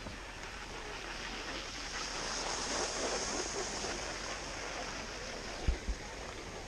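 Skis sliding over snow, a steady hiss that swells and eases again, mixed with wind rushing on the microphone. Two short thumps come near the end.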